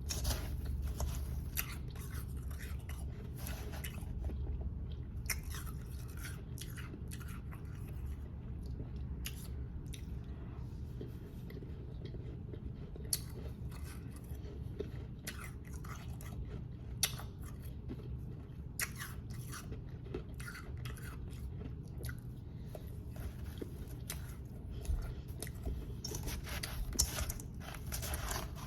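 A person biting and chewing powdery ice close to the microphone: irregular crisp crunches, thicker near the start and end, over a steady low hum.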